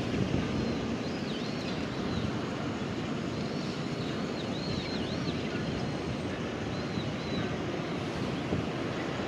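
Steady road traffic noise, with faint high, swooping bird calls over it for most of the stretch.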